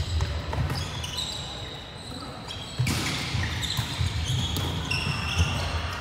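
Indoor volleyball rally: athletic shoes squeaking on a hardwood court, with sharp smacks of the ball being hit, the strongest about three seconds in.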